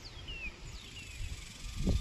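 A bird gives two descending whistled calls about half a second apart in the first second. Behind them runs a low wind rumble on the microphone, with a dull thump near the end.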